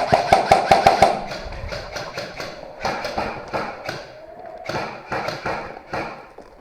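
Airsoft gun firing a rapid burst of evenly spaced shots that stops about a second in, followed by scattered irregular knocks and thuds.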